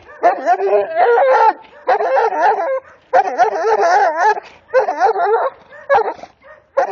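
Serbian defense dog x American bulldog cross barking aggressively in repeated bouts, about six of them, each under a second or so and wavering in pitch: defensive barking at someone at her fence.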